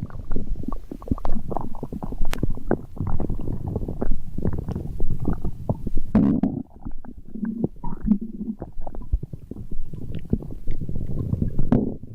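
Human stomach growling: a continuous run of gurgles and bubbling rumbles, with a few short low-pitched growls about six, eight and twelve seconds in.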